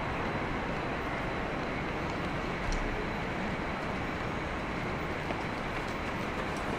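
Steady city street ambience: an even wash of traffic noise with no single vehicle standing out.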